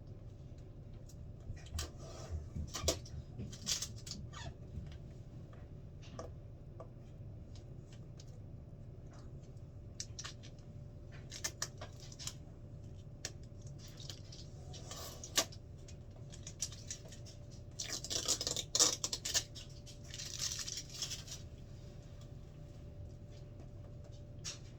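Packing tape and plastic wrapping being peeled and pulled off a boxed machine: scattered clicks and scrapes, with louder crinkling bursts a few seconds in and again about three-quarters of the way through.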